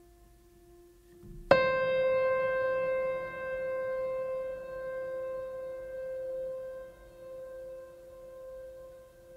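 Background music: faint held tones, then about a second and a half in a sharp struck note, piano-like, that rings on and slowly fades.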